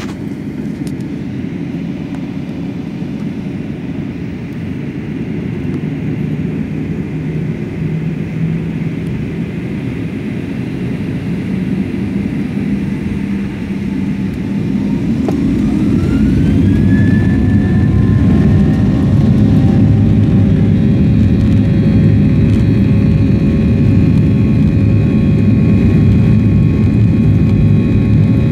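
Jet airliner engines heard from inside the cabin: a steady rumble during taxi. About halfway through, a whine rises in pitch as the engines spool up toward takeoff power. The rumble then grows louder and holds steady under several steady whining tones.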